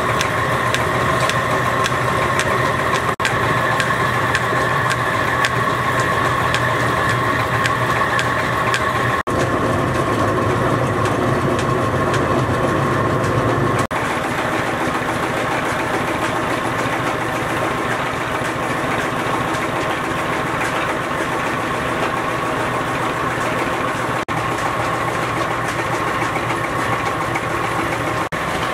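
Small stationary engine running steadily, driving a belt-and-flywheel grinding machine, with a steady whine from the machinery over the engine's hum.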